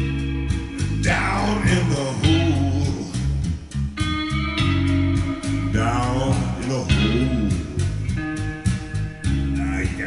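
Instrumental blues passage played back over hi-fi loudspeakers: guitar over a steady bass line, with sliding notes that sweep up and down about a second in and again about six seconds in.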